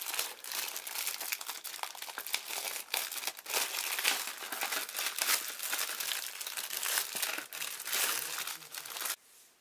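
Clear plastic kit bag crinkling and rustling in the hands as it is opened, with many small clicks; it stops near the end.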